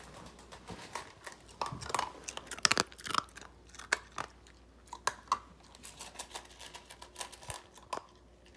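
A 10-week-old Siberian husky puppy eating from a metal bowl: quick, irregular crunches and chews, busiest a couple of seconds in.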